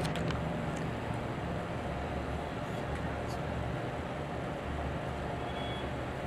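Steady background noise: a low rumble with an even hiss and a few faint clicks.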